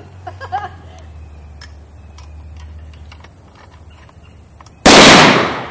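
Scattered light clicks, then a single loud gunshot near the end that rings out and fades over most of a second.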